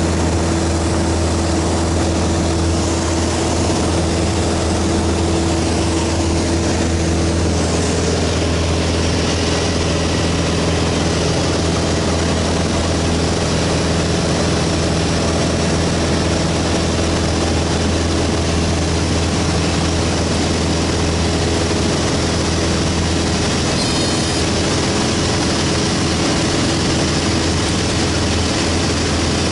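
Single-engine light aircraft's engine and propeller droning steadily, heard from inside the cockpit in flight.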